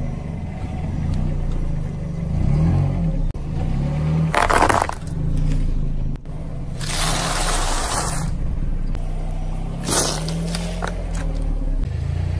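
A car's engine running slowly while its tyre rolls over and crushes soft and crunchy food (a layered cake, small hard candies), with several bursts of crunching and squashing, the longest lasting over a second.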